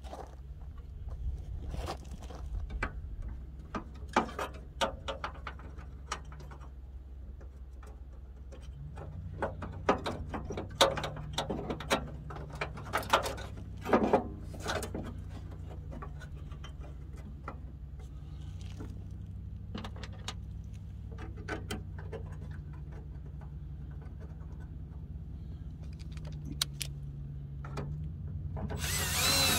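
Metal headlight mounting parts and screws clinking and clattering as they are handled at a pickup's grille, over a steady low hum. Right at the end a cordless drill starts spinning.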